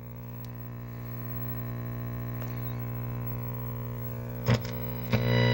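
Steady buzzing electrical hum from a vintage 1949 Philco television set, made of several stacked tones, slowly growing louder. Two clicks come near the end, and then the hum gets much louder.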